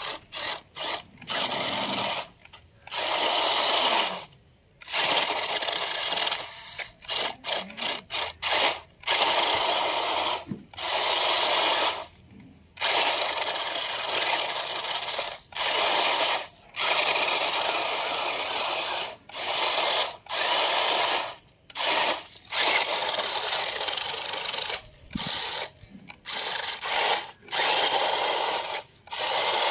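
Toy RC rock crawler's small electric drive motor and gearbox whirring in bursts as it drives through dried corn kernels, the tyres churning and rattling the kernels. The sound cuts in and out sharply with the throttle, with several quick short blips partway through.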